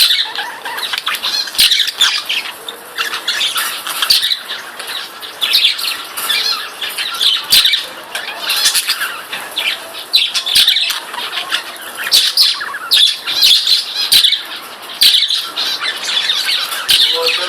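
Several budgerigars chattering and squawking continuously, a dense stream of quick chirps with a few sharp clicks among them.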